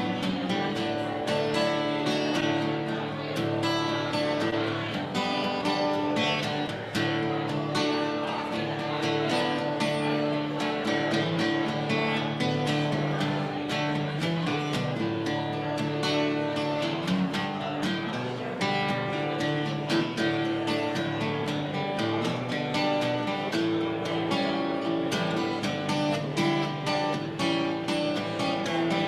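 Acoustic guitar strummed solo in a steady rhythm, an instrumental break between the verses of a folk-rock song.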